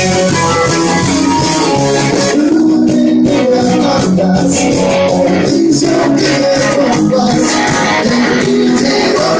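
Live rock band playing loud, with electric guitar, bass guitar and keyboards over a steady drum beat that comes in strongly a couple of seconds in.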